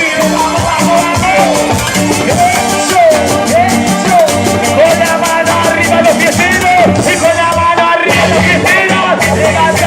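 Live band music with a voice singing over a steady drum beat and low bass notes.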